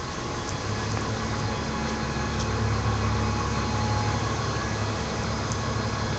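City bus engine running with a low, steady hum that swells a little through the middle.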